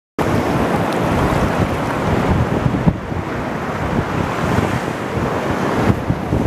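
Shallow surf washing in over a sandy beach, with wind buffeting the microphone in an uneven low rumble.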